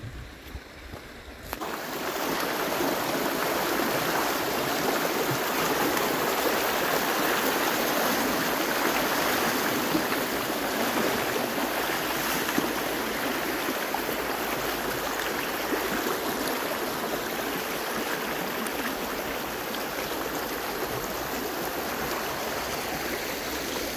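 Small mountain river rushing steadily, starting abruptly about a second and a half in.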